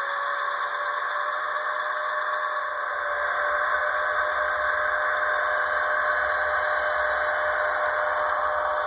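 HO scale Tangara model electric train running with its LokSound 5 sound decoder: a steady electric whine over a hiss, settling onto one pitch just after the start. A low rumble joins about three seconds in as the model gets moving.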